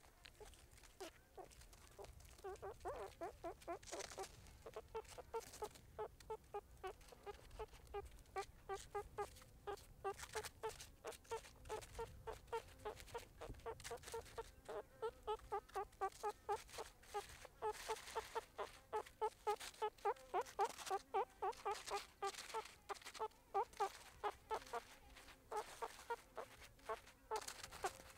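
Meerkats calling: a steady run of short pitched calls, about three a second, sparse at first and continuous from about two seconds in, with scattered faint clicks.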